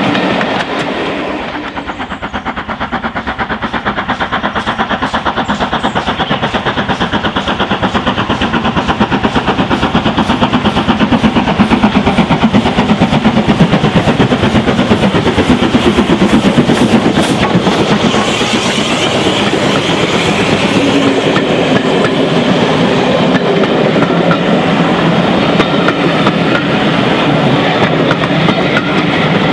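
LMS 8F 2-8-0 steam locomotive No. 48624 approaching and passing under steam with its exhaust beating fast, then its coaches rolling by with the clickety-clack of wheels on the track. In the first second or two, another train's coaches fade away.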